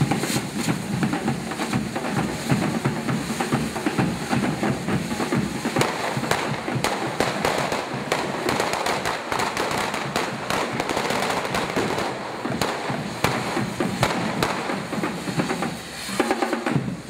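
Correfoc fireworks: carretilles, spark-spraying fountains on devils' pitchforks, hissing and crackling continuously, with drumming alongside. The crackle briefly dips near the end.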